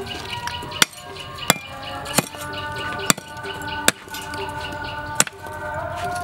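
A steel cleaver striking and splitting charcoal briquettes on a concrete floor: six sharp, separate knocks over about five seconds, unevenly spaced. Background music plays underneath.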